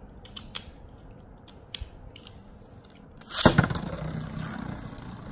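A few faint plastic clicks as a Wild Wyvern Beyblade top is set in its launcher, then about three seconds in a sudden loud launch, and the top spinning on the plastic stadium floor with a steady whir.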